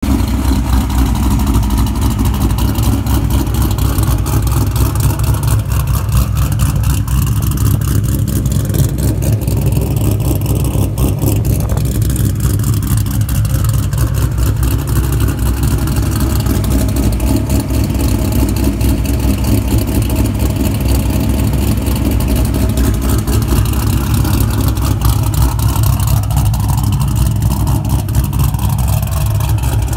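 Cammed Fox-body Ford Mustang idling, its exhaust running steadily with a lumpy, uneven cam chop.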